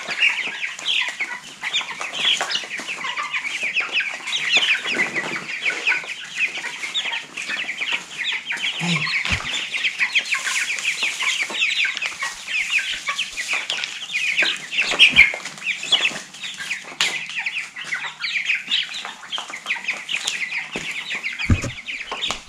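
A flock of young chicks, mostly Cornish cross broilers, peeping without pause as they feed, many short falling chirps overlapping. A few soft knocks come through, near the middle and near the end.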